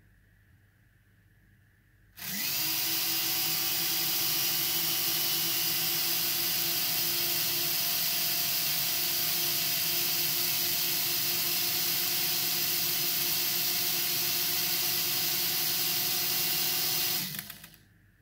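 Motors and propellers of a JJRC / Cfly Faith (Eachine EX4) mini quadcopter spin up about two seconds in with a quick rising whine, run steadily at full whir for about fifteen seconds, then wind down and stop near the end.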